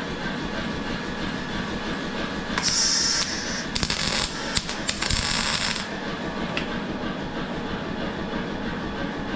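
MIG welder arc crackling in a few short runs, starting about two and a half seconds in and stopping about six seconds in, over a steady low rumble.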